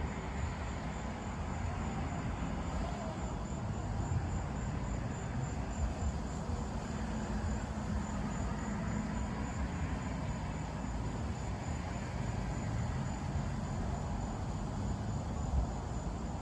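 Insects chirping in a steady, high, pulsing trill over a low, constant rumble.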